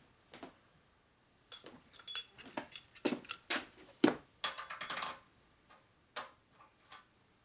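Small metal fork parts clinking and rattling against each other in a quick run of sharp strikes with a short metallic ring, after a quiet first second and a half; one more click follows about six seconds in.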